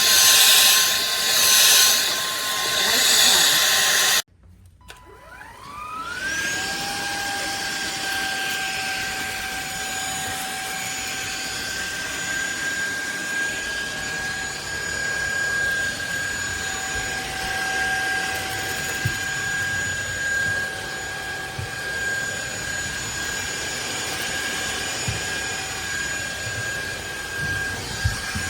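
SunSare X7A cordless stick vacuum running with a loud rushing hiss as it sucks up dirt. About four seconds in, the sound cuts off abruptly. The motor then spins up with a rising whine and settles into a steady high whine.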